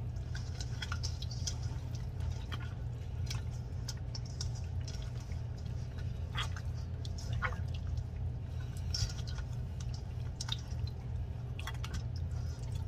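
Hands massaging a wet marinade into the skin of a raw whole chicken in a stainless-steel bowl: scattered soft wet squelches and smacks, over a steady low hum.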